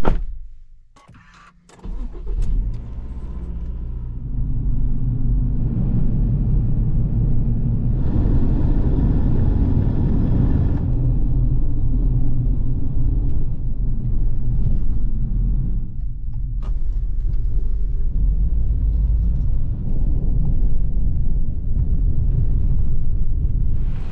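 Car engine and tyre noise heard from inside the cabin while driving, a steady low hum and rumble that starts after a few clicks about two seconds in. The rumble gets hissier for a few seconds in the middle.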